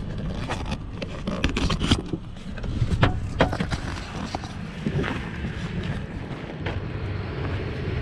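Pickup truck door opening and a person climbing out onto gravel: a run of sharp clicks and knocks, then crunching steps, over a steady low rumble.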